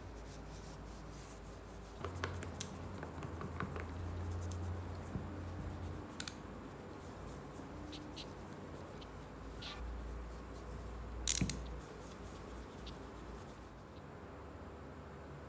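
Scattered light clicks and taps of small objects being handled, over a low steady hum. A short cluster of louder clicks comes about two-thirds of the way through.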